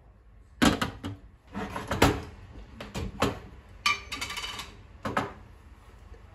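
Kitchen handling noises: about half a dozen knocks and clatters as things are set down and moved about, one a little before the middle with a short ringing clink.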